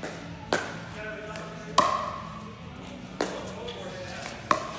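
Pickleball paddles striking a hard plastic pickleball in a rally: four loud, sharp hits roughly a second and a half apart, each with a short ringing ping, over faint background chatter.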